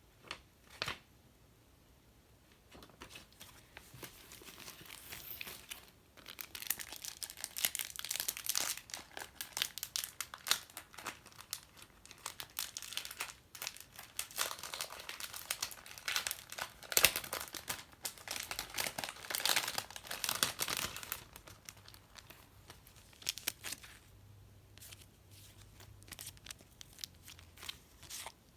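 Packaging being handled and opened, crinkling and tearing in a dense crackle with a couple of sharp clicks at the start and scattered taps near the end.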